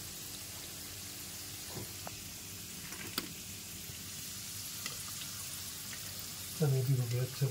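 Litti deep-frying in a wok of hot oil, the oil sizzling steadily around them, with a couple of faint light clicks.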